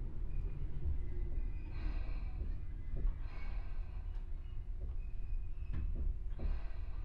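Interior ambience of a Tobu 10000 series electric train car standing at a station platform: a steady low rumble from the car's equipment, with a few faint softer sounds on top.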